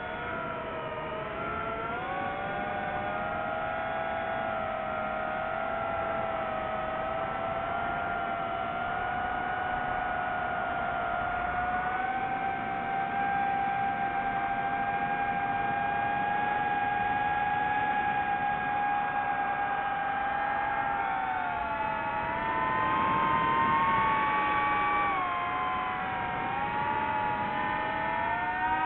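DJI FPV drone's motors and propellers whining in flight, several tones together that shift in pitch with the throttle: they dip in the first couple of seconds, hold fairly steady through the middle, then rise and fall again near the end.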